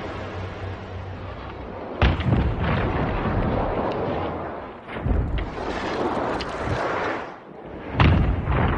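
Three deep booming impacts about three seconds apart, each trailing off into a rumbling hiss that continues between them: the slowed-down sound of a sprinter's footfalls on the track.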